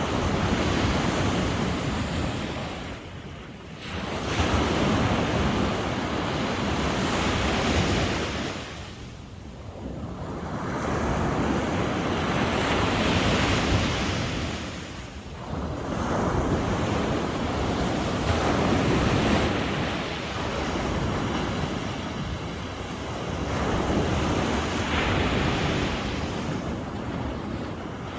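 Ocean waves breaking on the shore one after another, a rushing surf that swells and fades every several seconds.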